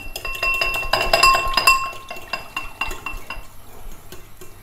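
A utensil beating egg and milk in a ceramic bowl: rapid clinking against the bowl, which rings with each stroke, easing off after about three seconds.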